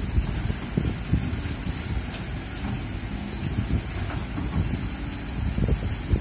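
Kobelco crawler excavator's diesel engine running as the arm and bucket move through the soil, with wind buffeting the microphone in uneven low gusts.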